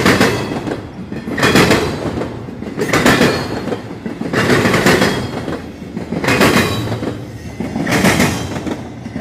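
Steel wheels of a passing intermodal freight train clattering over a railroad diamond crossing, with a loud burst about every one and a half seconds as each wheel truck crosses the gaps, over a steady rolling rumble.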